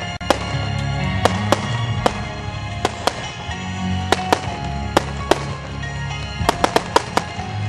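Fireworks going off: rockets and aerial shells bursting with sharp bangs at irregular intervals, with a quick run of bangs near the end, over steady background music.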